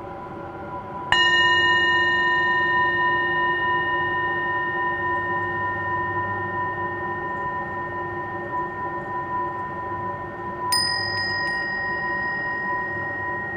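Ambient music: a steady drone, then a struck bell-like metal tone about a second in that rings on and slowly fades, and a second, higher strike later on.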